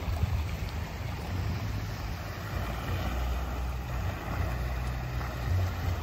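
Wind buffeting the microphone, an uneven low rumble over a steady outdoor hiss.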